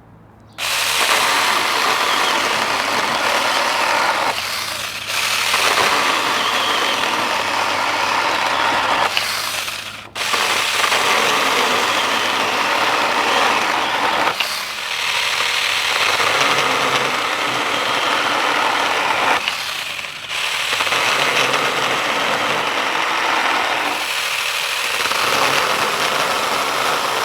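A 6-inch 20-volt brushless cordless mini chainsaw running loudly in long stretches, its motor and chain whirring with a steady hum underneath. The sound dips briefly about every five seconds.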